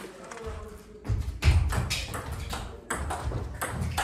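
Table tennis rally: the ball clicking sharply off the bats and the table in quick succession, starting about a second in, with low thuds of the players' feet on the floor.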